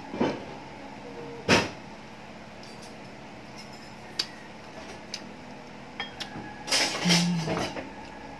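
A person eating smoked fish with bare hands: scattered short clicks and smacks from fingers on the plate and mouth, one sharp click about a second and a half in, and a cluster of mouth smacks near the end. Under it runs the steady hum of an electric fan.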